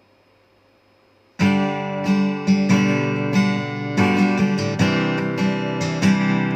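Takamine ED05SC-NS acoustic guitar strummed in chords, starting about a second and a half in after a faint hiss, with repeated strokes ringing on.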